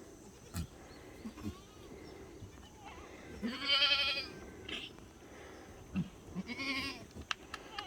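Black goats bleating: two wavering bleats, the louder one about three and a half seconds in and another near the end, with a few short knocks in between.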